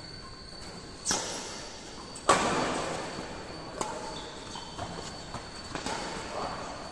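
Badminton rackets striking a shuttlecock during a doubles rally: two sharp hits about one and two seconds in, the second the loudest and echoing through the hall, then lighter hits.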